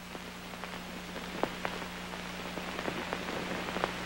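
Surface noise of an old film soundtrack between narration lines: a steady hiss and low hum with scattered faint crackles and pops.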